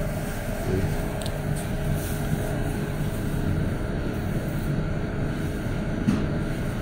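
Steady hum and whir of an SMT production line: Hanwha DECAN pick-and-place machines running and placing components, with two faint clicks.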